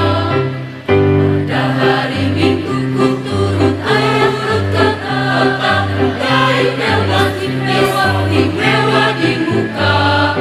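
Mixed choir of women's and men's voices singing, backed by a bass line that moves to a new note about once a second.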